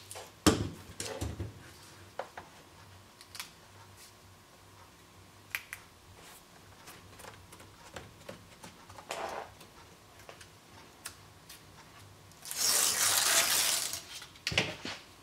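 Putty tape being pressed along a plastic roof-vent flange, with small scattered clicks and taps. About twelve seconds in, the crinkly paper backing is peeled off the putty tape in one loud tearing rustle lasting about a second and a half.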